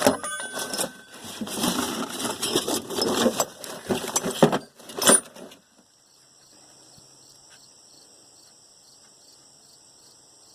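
Metal hand tools clattering and rattling as they are rummaged through and handled, for about five and a half seconds, then stopping. Crickets chirp steadily in the background, clearly heard once the rattling stops.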